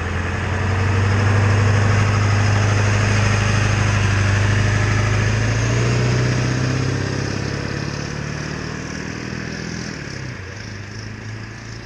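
Ford F-250's 7.3L Powerstroke turbo-diesel V8 idling with a steady hum, then dropping to a lower, quieter idle in the last few seconds.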